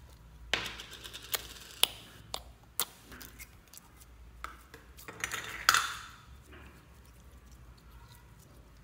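Thin clear plastic slime cup clicking and crinkling as yellow slime is taken out of it by hand, with a run of sharp snaps and crackles, the loudest about six seconds in, then quieter handling.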